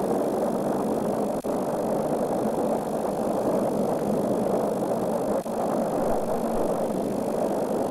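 A loud, steady roaring noise, strongest in the low and middle pitches, with two brief drop-outs, about a second and a half in and again about five and a half seconds in.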